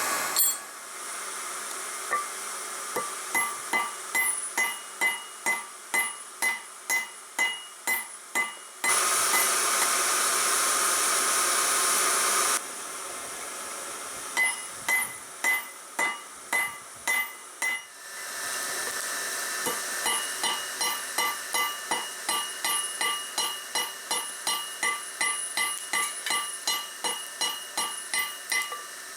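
Hammer blows on hot steel at the anvil, about two a second, each with a ringing clang, as an annealed file is forged into a gouge. In the middle the hammering stops for a few seconds while a steady rush of air from the forge blower takes over.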